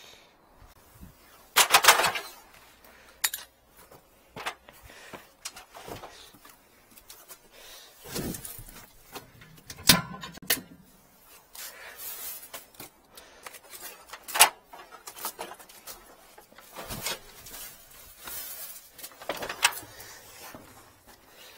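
Scattered knocks, clicks and clatter of footsteps and handling as a worker opens an access hatch and climbs down a ladder into a crawlspace, with a few sharper knocks standing out.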